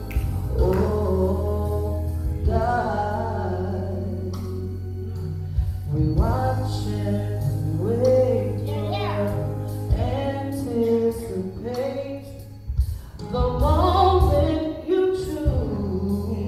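A woman singing a slow gospel song solo into a microphone, with long held and gliding notes, over an accompaniment with a steady low bass.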